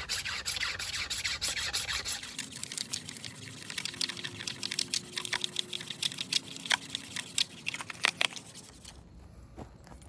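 The spine of a Mora Companion stainless knife scraping a bamboo tube, rapid rasping strokes that thin out to scattered sharper scrapes in the second half and stop shortly before the end. It is shaving off fine bamboo scrapings for a tinder bundle.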